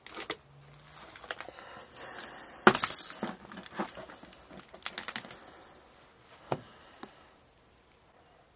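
Knocks, scrapes and light clinks of a person moving through debris in a cramped crawlspace, with the loudest scrape about three seconds in, dying away near the end.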